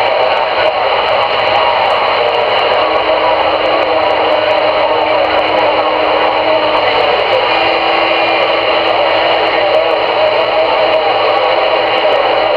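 CRE 8900 CB radio on AM channel 22 (27.225 MHz) putting out loud, steady static through its speaker with no clear voice on the channel. A faint, steady low whistle comes in about three seconds in, drops out briefly around the middle, then returns.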